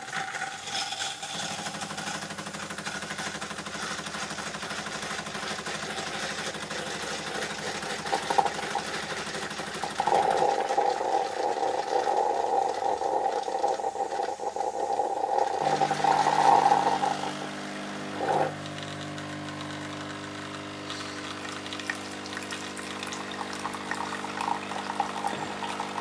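Bosch Tassimo pod coffee machine brewing tea from a T-disc: its pump buzzes steadily as hot water is forced through the disc and tea runs into the glass. The pump's note shifts about ten seconds in and again just past halfway, with a brief louder burst a little after.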